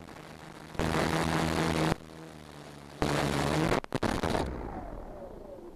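F450 quadcopter's motors and propellers: a steady multi-tone hum with two loud throttle bursts of hum and rushing air, the second bending down in pitch. After that the motors spin down in the grass with a falling whine that fades out.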